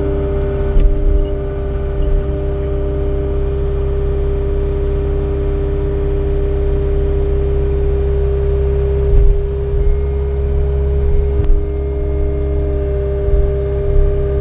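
Cat 259 skid steer's diesel engine running steadily under work, a low rumble with a steady whine over it and a few brief louder knocks.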